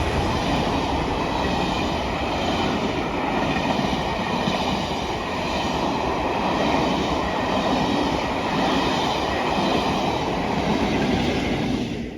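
A locomotive-hauled train of empty passenger coaches rolling steadily past, its wheels clattering over the rail joints.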